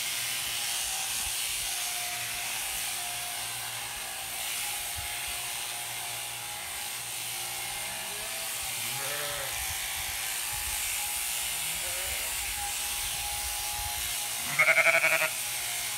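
Electric sheep shears running with a steady hum as sheep are shorn. Sheep bleat faintly about halfway through, then one loud, wavering bleat comes near the end.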